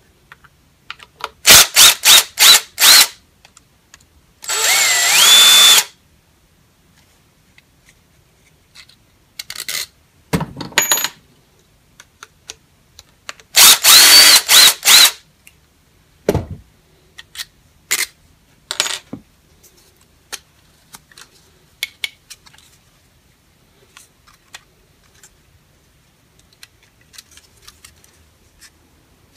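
Sharp metal-on-metal hammer strikes with a ringing tone, knocking apart a DeWalt DW402 angle grinder's stator housing, in quick clusters of four or five blows. There is a brief whirring burst with a rising whine about four seconds in, and scattered small clicks of parts being handled toward the end.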